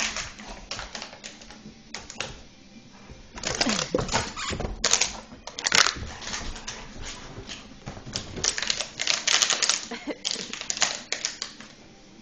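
St Bernard puppy chewing a plastic water bottle: irregular clusters of crackling and crunching plastic.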